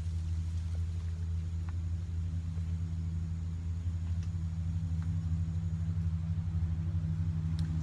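A steady low mechanical rumble, like an engine running, with a few faint clicks.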